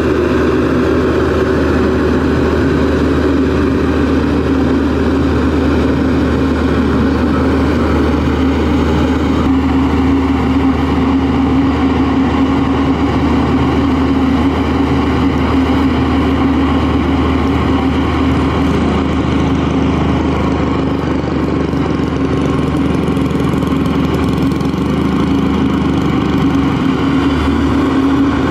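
Diesel engine of a LiuGong vibratory roller compactor running steadily while compacting a gravel road bed, a continuous heavy drone with a low rumble. A motor grader is running alongside it, and the sound shifts slightly about ten seconds in.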